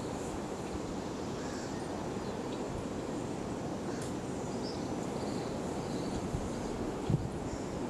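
Outdoor ambience: a steady rushing noise with faint, brief high chirps scattered through it, and a short dull thump about seven seconds in.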